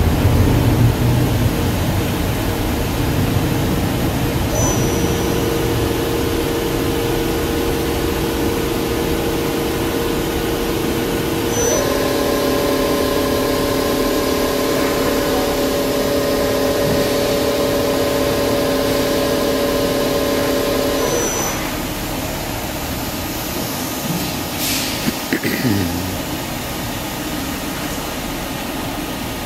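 Doosan DNM400 vertical machining center with its spindle running: a steady multi-tone hum starts about five seconds in, steps up to a higher set of tones about midway, and stops about two-thirds through, over a constant machine hiss.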